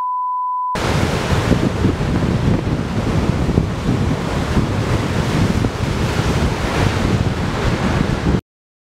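A steady high test-tone beep stops under a second in. Then gusty wind buffets the microphone over the rush of surf on the sea, cutting off abruptly near the end.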